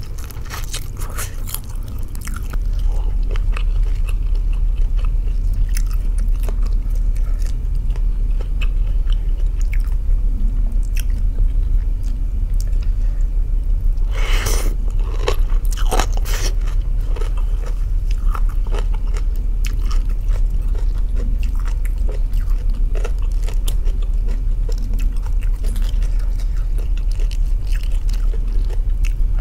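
Close-miked eating sounds: slurping and chewing rice noodles by hand, with crunching bites and a denser stretch of slurping about fourteen seconds in. A steady low hum sets in about two seconds in.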